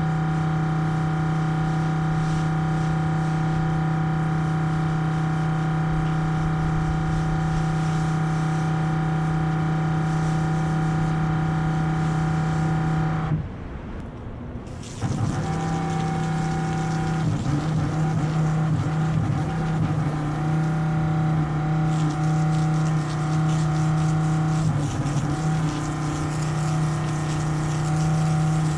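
Washing rig's pump motor running with a steady hum while water is sprayed onto concrete. The hum cuts out for about a second and a half near the middle and then starts again, less even than before.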